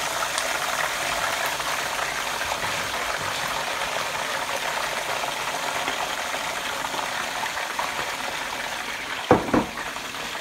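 Chicken pieces deep-frying in hot oil in a wire-mesh frying basket: a steady sizzle. Two sharp knocks near the end.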